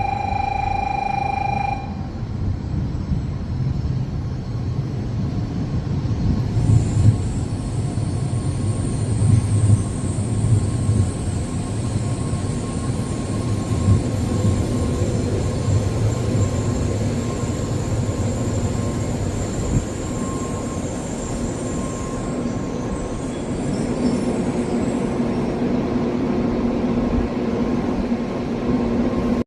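Train moving along the track at a station: a continuous low rumble of wheels and running gear, with a steady high whine through the middle stretch. A steady electronic tone cuts off about two seconds in.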